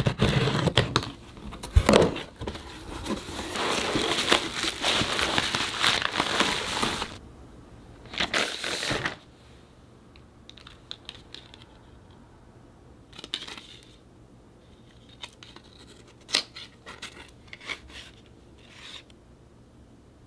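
Packaging being torn open and crumpled: a long stretch of tearing and crinkling for about seven seconds, a second short burst, then quieter rustling and small handling clicks.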